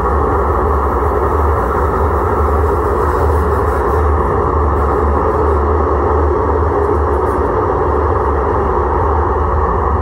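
A 1983 Siemens-Duewag U2 light rail car standing still, giving off a steady, unchanging low hum and rushing noise. The sound is muffled.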